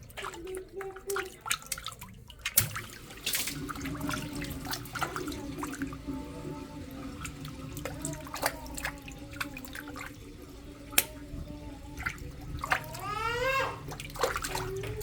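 Water balloons bursting one after another: sharp pops with water splashing and running, the loudest pop about two and a half seconds in.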